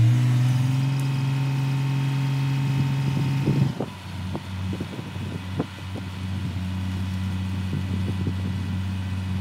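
Komatsu PC200 hydraulic excavator's diesel engine running steadily, then dropping to a lower, quieter speed about four seconds in. A few light knocks follow.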